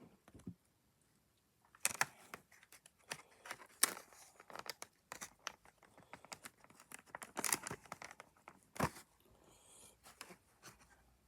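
Packaging being handled while a boxed model airliner is unpacked: irregular rustling, crinkling and tearing, starting after a short quiet pause, with one sharper snap near the end.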